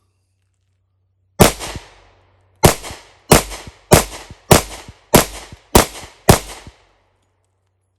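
Eight pistol shots from a Rock Island 10mm double-stack handgun: a single shot, a pause of just over a second, then seven more at a steady pace of about one every 0.6 seconds.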